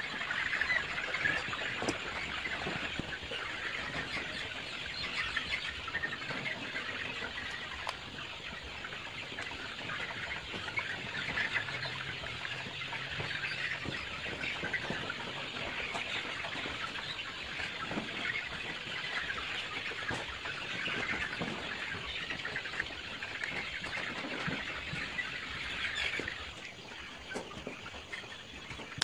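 Many young chicks peeping at once, a continuous dense chatter of small chirps with a few faint clicks mixed in. It quietens a little near the end.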